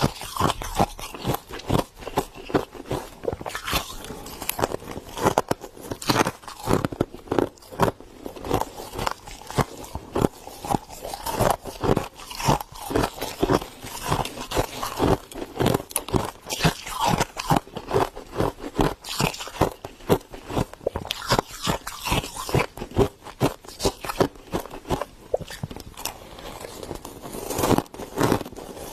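Soft freezer frost being crunched up close: a dense, continuous run of crisp crunches and crackles.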